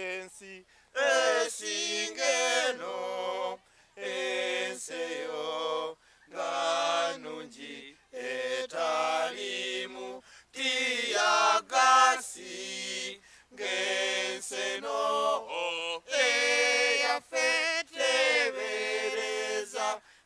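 A small group of men singing together a cappella, unaccompanied, in short held phrases with brief pauses between them.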